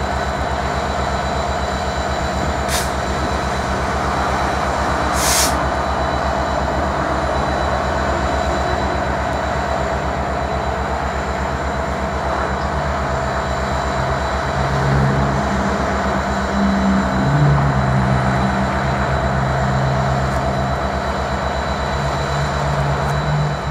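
Norfolk Southern SD70M-2 diesel-electric locomotive, with its 16-cylinder EMD 710 two-stroke engine, running while standing at the head of a freight train. It gives a steady engine drone with a thin high whine over it. There are two short hisses about three and five seconds in, and the engine note shifts and swells through the second half.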